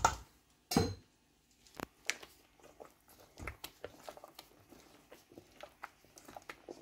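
A spoon stirring thick, wet cookie batter in a stainless steel bowl, with irregular squelching and small clicks against the metal. Two sharper knocks come within the first second.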